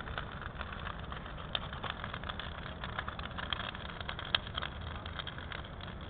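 Large wood bonfire burning: a steady low rumble with frequent sharp crackles and pops, one louder pop about four seconds in.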